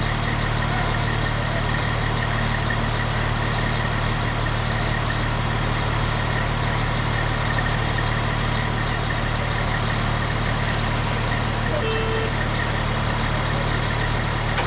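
Diesel engines of a line of fire trucks idling, a steady low drone with no change in pitch.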